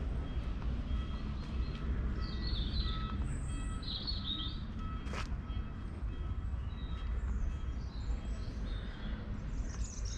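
Small birds chirping and singing in short bursts of a few notes, over a steady low rumble. A single sharp click sounds about five seconds in.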